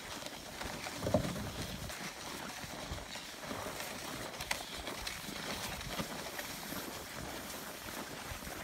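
Footsteps crunching through packed snow while a small wooden sled slides over the snow, with a brief low rumble about a second in.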